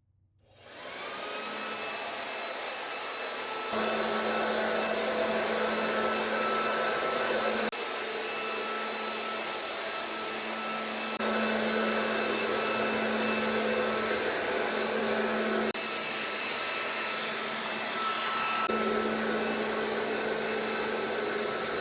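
Vacuum cleaner motor spinning up and then running steadily with a whine. The level jumps a few times between spliced stretches of the same run.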